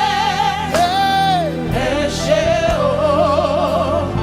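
Live gospel worship music: a solo singer holding long, wavering notes over a steady backing band.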